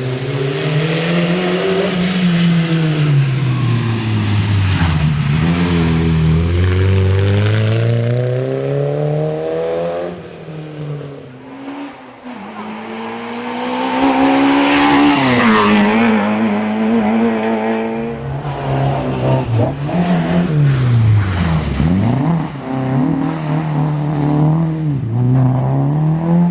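Peugeot 205 rally car's four-cylinder engine at full throttle, the revs climbing steadily and then dropping sharply at each gear change. A quieter stretch a little before the middle, then a loud pass, then the revs rising and falling quickly several times near the end.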